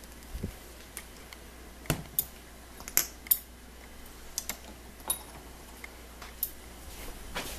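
A dozen or so sharp clicks and light taps at irregular intervals, like small hard objects knocking together or being handled; the loudest come around two and three seconds in.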